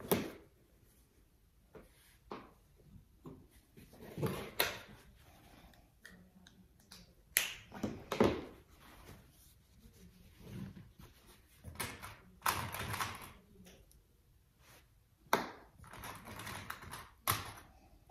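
Cotton fabric pieces being handled and shifted on a sewing table: irregular rustling, with several short sharp knocks and clicks as things are moved and set down.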